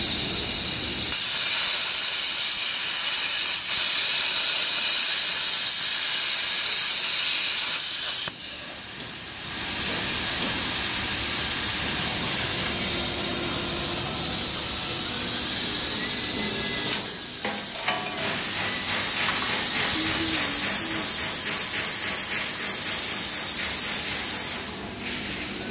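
CNC plasma torch cutting a round steel tube turned on a rotary axis: a loud, steady hiss of the plasma arc that drops out briefly twice, about eight and seventeen seconds in, and cuts off near the end.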